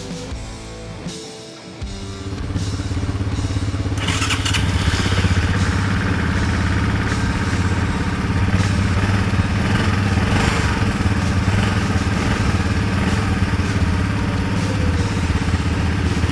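Background music for about the first two seconds, then an ATV engine starts up and runs steadily. The engine gets louder and rougher from about four seconds in.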